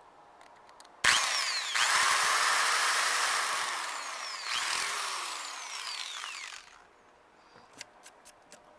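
Electric drill starting suddenly and boring a hole through the front panel of a Cobra 2000 GTL CB radio, its motor pitch sagging and recovering as it cuts. It runs for about six seconds and stops, followed by a few light clicks.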